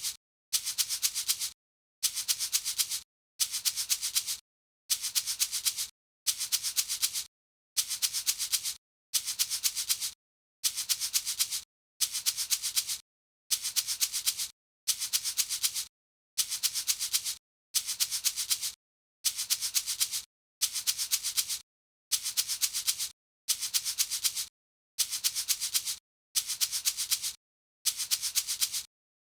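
Salt shaker shaken in short bursts of several quick shakes, the salt grains rattling with a high, hissy sound. A burst comes about every second and a half, with dead silence between.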